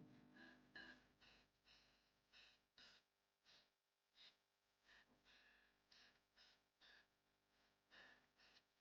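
Near silence with faint, short knife strokes about twice a second: a knife scoring cuts into raw chicken wings.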